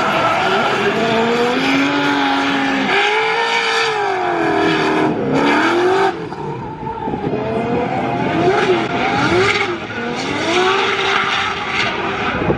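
Drift cars' engines revving hard, the note rising and falling again and again as the throttle is worked mid-slide. Under it runs the rushing hiss of sliding, spinning rear tyres.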